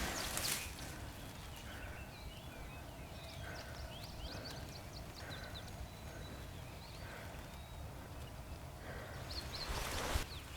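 Small songbirds chirping and singing, with many short rising and falling notes. A brief rustling noise at the start and again near the end.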